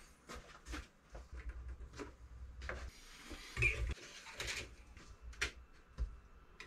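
Scattered clicks, knocks and rustles of hands handling a Creality Ender 3 S1 Pro 3D printer and a plastic filament spool. The loudest knock comes about three and a half seconds in, as the spool is fitted onto the printer's top-mounted spool holder.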